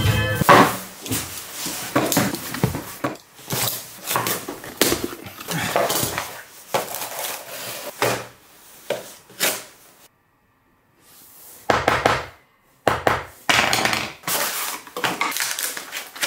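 Objects being handled at close range: a run of irregular knocks, clicks and rustles, with a short pause about two thirds of the way through.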